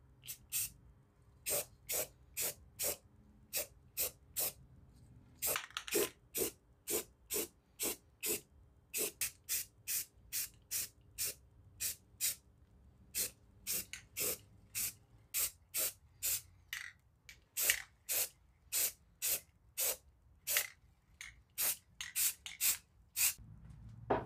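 Paint sprayed in many short hissing bursts, about two a second, each squirt cut off sharply.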